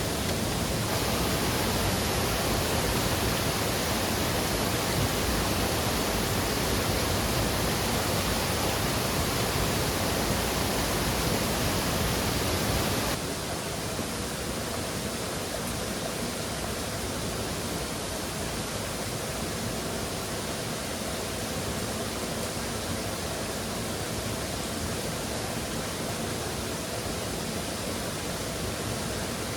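Steady rushing of a waterfall. About 13 seconds in it suddenly drops a little quieter and duller, then carries on steadily.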